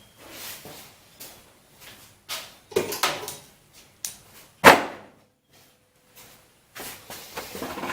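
Workbench handling noises: scattered clicks and knocks of tools and metal parts being moved, with one sharp, loud knock a little under five seconds in.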